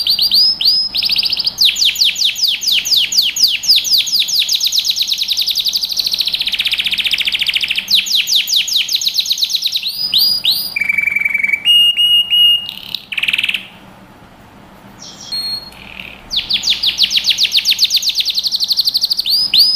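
Male domestic canary singing an excited courtship song, the song of a cock in breeding condition. It runs through long, fast trills of rapidly repeated notes, changes to a steadier whistled note, drops into a brief lull about two-thirds of the way through, then resumes trilling.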